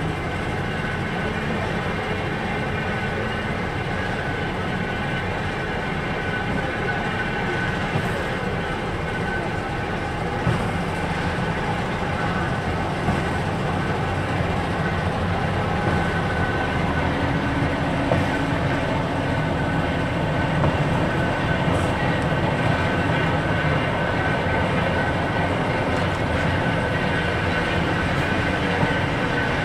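A small diesel shunting locomotive running steadily as it is slowly turned on a turntable, with a steady high whine and a few light clanks.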